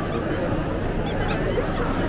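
Crowd chatter from many people in a busy indoor event hall, with repeated short, high squeaks scattered through it.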